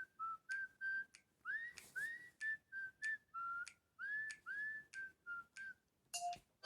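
Huawei phone ringtone of a whistled tune, playing from the phone's speaker: a string of short whistle notes, several swooping upward. It stops about a second before the end, and a brief different tone follows.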